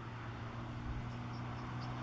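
A steady low engine hum with a constant pitch, growing slightly louder, with faint short high chirps over it.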